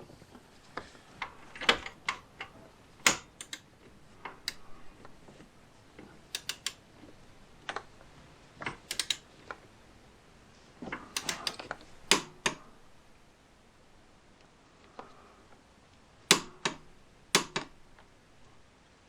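Ratchet torque wrench clicking in short runs as a belt tensioner bolt is tightened to torque, with scattered sharp metal clicks and clinks of the tools.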